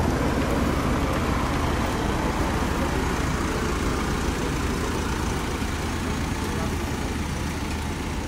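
Steady street-traffic noise with the low hum of vehicle engines running.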